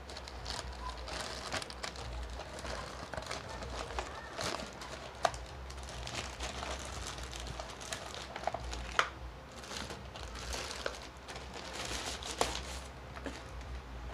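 Plastic courier pouch crinkling and rustling as it is handled and opened by hand, with several sharp snaps.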